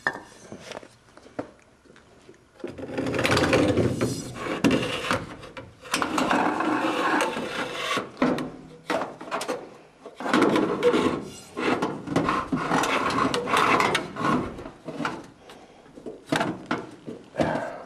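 A metal tube being worked through an access hole inside a light aircraft's wing, scraping and rubbing against the structure in three long stretches, with short clicks and knocks between them and near the end.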